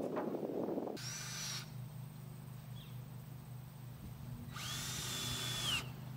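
Power drill run twice in short bursts, about a second in and again for just over a second near the end, its motor whining high and dropping in pitch as it stops. A rough rustling noise fills the first second, and a steady low hum runs beneath the drill.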